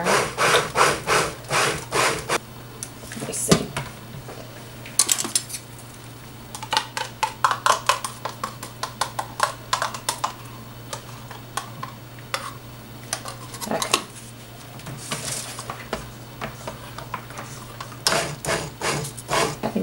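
Irregular scraping and tapping against a ceramic crock pot as oatmeal gel is scraped out of a glass measuring cup and stirred into raw soap batter, in short clusters of clicks with pauses between.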